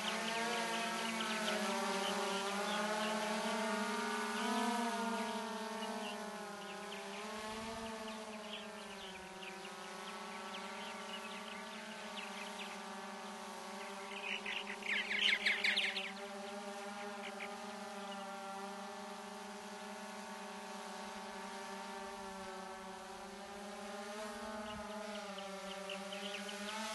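DJI Phantom quadcopter's rotors whining steadily, the pitch wavering as it manoeuvres. Purple martins chatter around it, loudest in a short burst about halfway through.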